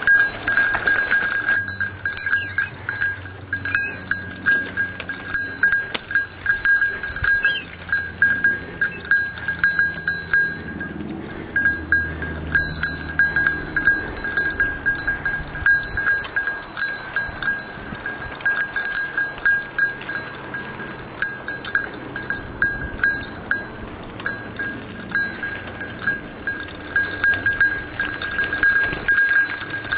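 A small metal bell jingling over and over at an uneven, rapid pace, rung to warn other riders on the trail, over a low rumble of riding.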